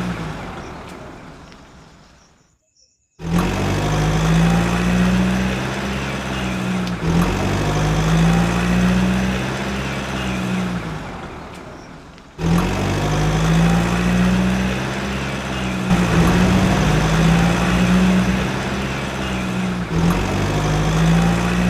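Steady, low engine-like hum. It fades away to near silence over the first few seconds, then starts abruptly about three seconds in, dips, and starts abruptly again about twelve seconds in.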